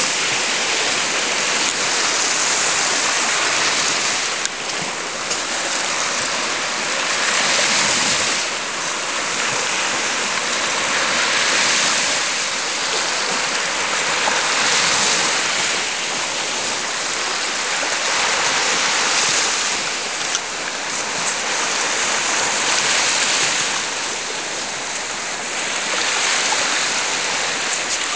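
Sea surf washing on a beach: a steady hiss that swells and falls every few seconds.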